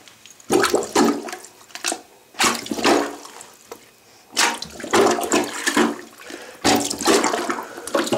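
Toilet bowl water surging and gurgling down the drain in repeated bursts about two seconds apart, as the bowl is emptied of water.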